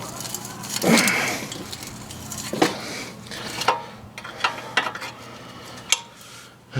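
Wrench and socket clinking and knocking against a stud on an exhaust manifold as a stuck socket is worked loose. About half a dozen sharp metallic clinks, the loudest about a second in.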